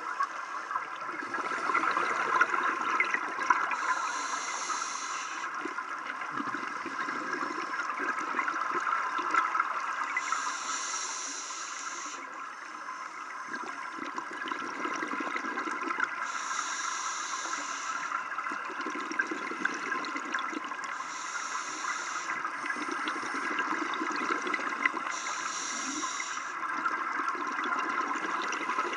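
Scuba diver breathing through a regulator underwater: a short hiss on each inhale and a bubbling rush of exhaled air, repeating about every five seconds over a steady background hiss.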